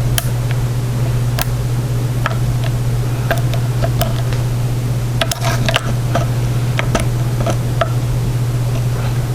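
Hook pick working the serrated pins inside an American 1105 padlock under tension, with scattered faint clicks and scrapes, busiest about five to six seconds in. A steady low hum runs underneath.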